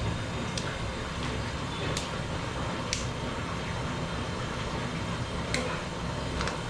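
Steady rushing noise of an LPG gas burner heating a large aluminium pot of spiced water, with a few light clicks.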